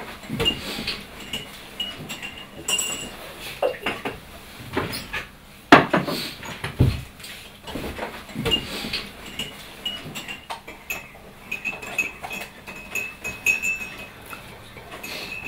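Kitchen clatter of a spoon clinking and stirring in a ceramic mug, its ringing clinks coming in quick runs, with dishes knocking on the counter and one sharp knock about six seconds in.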